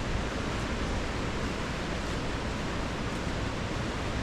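A fast, high river rushing steadily: a dense, even white-water noise from a river running rough.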